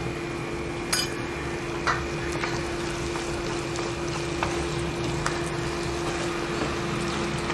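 Wooden spatula stirring thick masala in a non-stick frying pan, with a few sharp taps of the spatula against the pan, over a steady hum.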